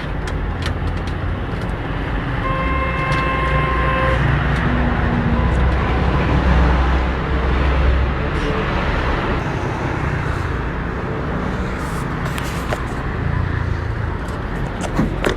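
Petrol engine of a walk-behind concrete cutter running steadily, with light clicks over it. A short horn-like tone sounds about two and a half seconds in and stops about four seconds in.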